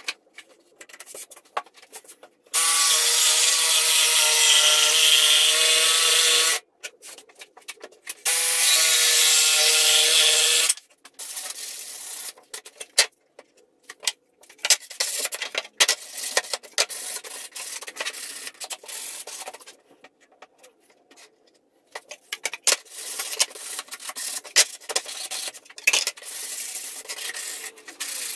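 Einhell cordless jigsaw cutting plywood in two runs, the first about four seconds and the second about two and a half seconds, the motor humming under a loud rasping saw noise. Then irregular rubbing and scraping as the cut plywood edges are sanded by hand.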